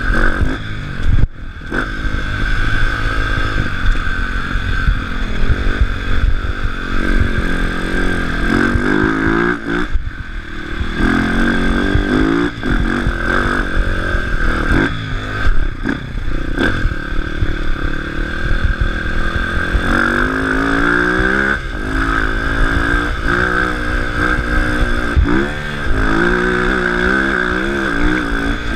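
Enduro dirt bike engine being ridden hard, revving up and dropping back again and again as the throttle opens and closes and gears change, with knocks and clatter from the bike hitting bumps in the dirt track.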